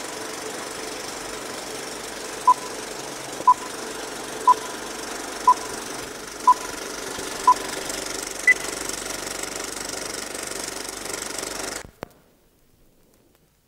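Film-leader countdown sound effect: a steady film-projector hiss and rattle with short beeps once a second, six at one pitch and a seventh beep higher. It all cuts off suddenly about two seconds before the end.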